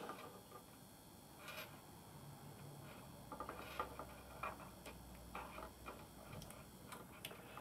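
Faint, scattered small clicks and ticks of a wire terminal being handled and pushed into a small plastic wiring connector housing.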